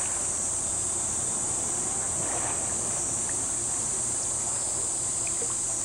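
Steady background noise: a constant high hiss and a low hum, with no distinct splashes or other events.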